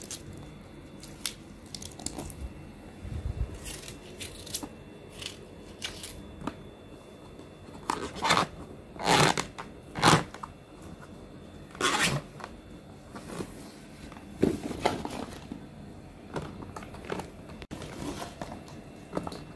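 Fresh vegetables being pressed by hand into a clear plastic jar: irregular crinkling and crunching of the plastic jar wall and the packed vegetables, with a few louder crackles about eight to twelve seconds in.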